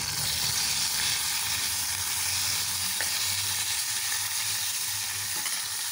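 Freshly washed moringa (drumstick) leaves sizzling in hot oil in an iron kadai, a steady frying hiss as the water on the leaves hits the oil.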